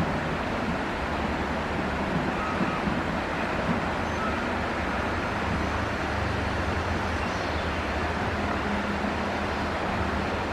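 Excavator's diesel engine running at a steady speed, with a constant even wash of noise over it.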